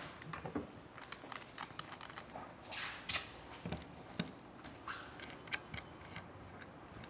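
Irregular light clicks and taps of wire leads and plugs being handled on a board of carbon resistors, with a brief soft rustle about three seconds in.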